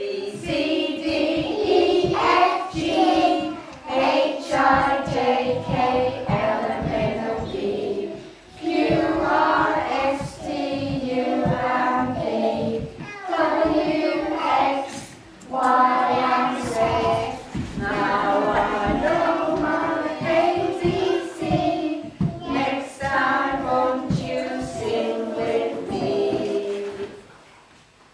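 A group of young children singing a song together in phrases, with short breaks between them, stopping shortly before the end.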